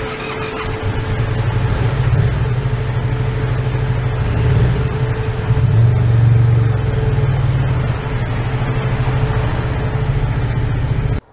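Yamaha Tracer 700's parallel-twin engine running on the move, a steady low rumble under a rush of wind noise. It stops abruptly near the end.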